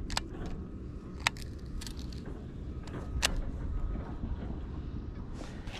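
Steady low wind rumble on the microphone, with a few sharp clicks as a baitcasting reel is handled.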